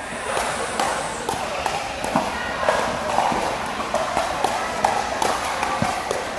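Busy sports-court ambience: scattered sharp clacks of balls being hit and bouncing, several a second, over footsteps and faint background chatter.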